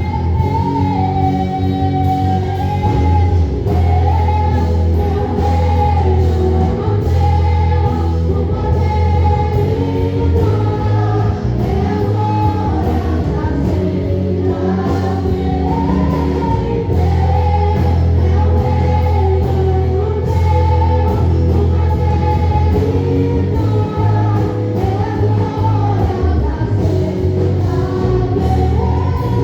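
Gospel worship music: several voices singing together over a band with a heavy, steady bass.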